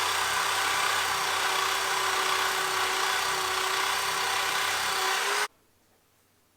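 Handheld power tool running steadily at full speed with a constant high whine, cleaning up the steering knuckle where the seized hub bearing came out. It cuts off suddenly about five and a half seconds in.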